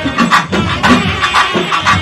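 Music with a strong, steady drum beat.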